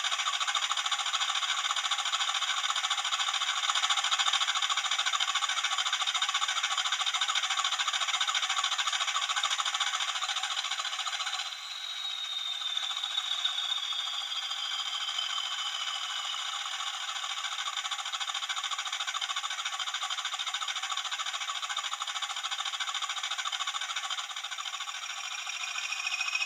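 Hornby TTS sound decoder playing a Class 20 diesel locomotive's idling engine through the model's small onboard speaker: a thin, rattling, steady engine sound with no bass. About eleven seconds in it drops a little and a high whistle falls slowly in pitch, and near the end a rising whistle begins.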